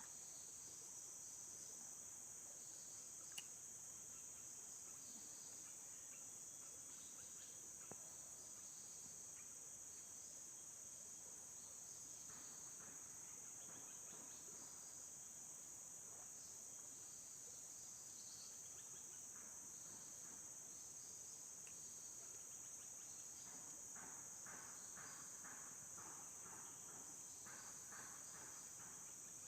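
Chorus of crickets and other insects, a steady high-pitched trill throughout, with fainter pulsed calls joining in the second half.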